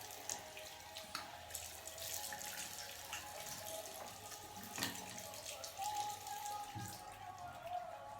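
A tap running into a bathroom sink while hands are washed under it: a faint, steady splashing with a few small sharp splashes.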